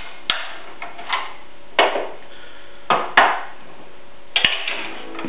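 Hand tools clanking and knocking against a steel mower deck being taken apart: about five separate sharp metal knocks, two of them close together a little after the middle.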